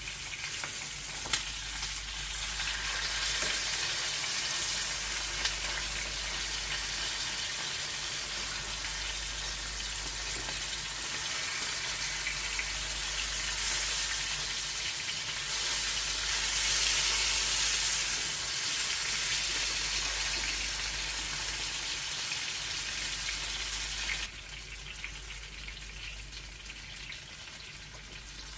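Chicken pieces frying in hot oil, a steady sizzle that drops noticeably quieter a few seconds before the end, with a low hum underneath.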